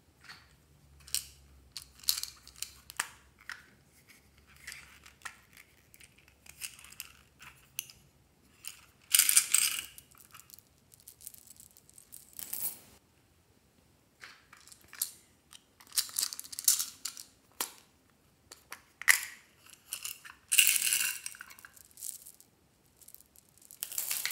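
Loose plastic beads clicking and rattling as they are handled and dropped onto slime in a glass bowl, with several louder clattering bursts as handfuls are poured.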